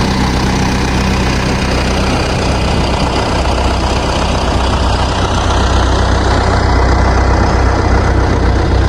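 Tractor engine running steadily at idle, a little louder from about halfway through.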